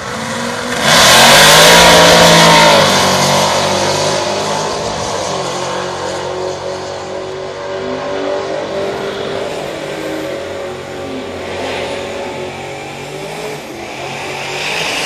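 Two drag-racing Ford Mustangs launching side by side at full throttle, engines revving hard about a second in, then running on through the gears and slowly fading as they pull away down the strip.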